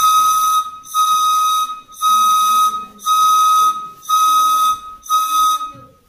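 Short red plastic pipe blown as a whistle: six short blasts about a second apart, each a steady high tone with breathy hiss. Its pitch is set by the length of the air column inside the pipe, which is being cut shorter to change the note.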